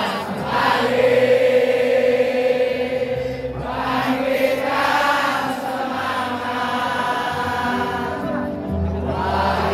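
Football supporters' mass singing: many voices singing a slow chant in unison, with long held notes in a few phrases.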